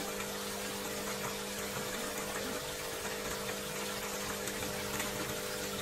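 Koi pond water circulating with a pump humming steadily underneath: an even rush of water with a constant low hum, no breaks.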